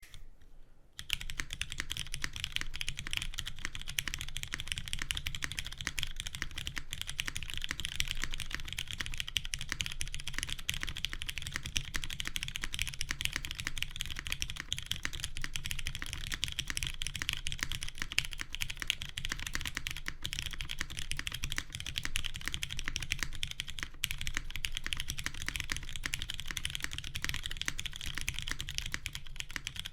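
Steady, continuous typing on a custom mechanical keyboard, a Keycult No.1 Rev 2 with Hyperglide Cherry MX Brown tactile switches lubed with Krytox 205g0, a polycarbonate half plate and GMK keycaps. The typing starts about a second in.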